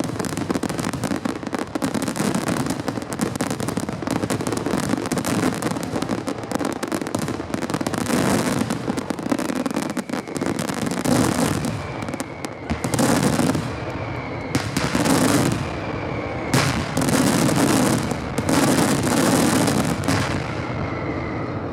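Grand fireworks finale: a dense, continuous barrage of shell bursts and crackling, breaking in the second half into separate heavy volleys a second or two apart.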